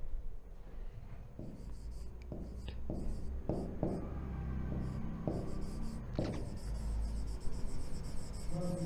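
Pen writing on a board: a run of short scratching strokes and light taps as words are written.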